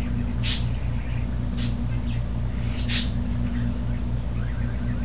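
Duralux 20-inch all-metal box fan coasting down with the power off, its three blades turning with a steady low drone that pulses several times a second. A few short, high chirps sound over it, one about half a second in and two close together near the three-second mark.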